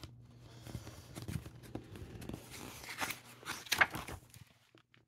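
Paper pages of a picture book being handled and turned, rustling and sliding, loudest about three to four seconds in and then stopping.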